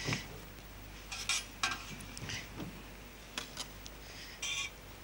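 Metal spatula and fork clinking and scraping against a pan while lifting leaf-wrapped pieces out of it, a handful of short separate clinks.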